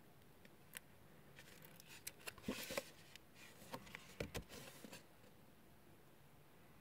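A folded cardboard instruction card being opened by hand: a scatter of crisp paper rustles and small taps, loudest around the middle.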